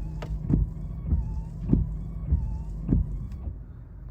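Windshield wipers sweeping across wet glass, with a thump at each end of the stroke about every 0.6 s and a faint rubbery squeak as the blades cross. They stop about three and a half seconds in. A car engine idles as a steady low hum underneath.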